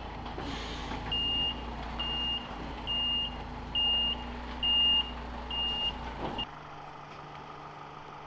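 A vehicle's reversing alarm beeps six times, about once a second, over a low engine rumble. About six and a half seconds in, this cuts to a quieter steady hum.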